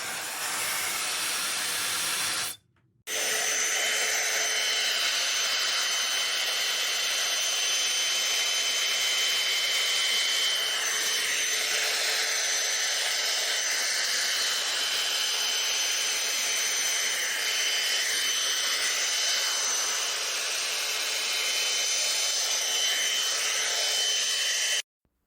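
High-speed ionic hair dryer running: a steady rush of air with a thin, high motor whine on top. The sound cuts out briefly about three seconds in, then stops abruptly near the end.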